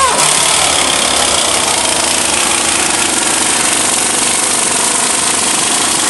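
Air-powered impact tool driving a Pneu-Tek tire demounter bar, hammering steadily without a break as it forces the second bead of a 14.00-24 grader tire off its steel rim.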